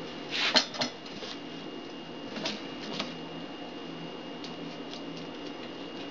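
A few light knocks and clicks of objects being handled on a hard surface: a quick cluster about half a second in, then two more a couple of seconds later, over a faint steady hum.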